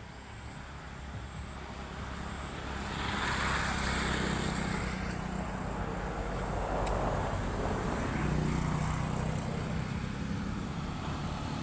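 A distant engine droning steadily, growing louder about three seconds in, its low hum shifting slightly in pitch.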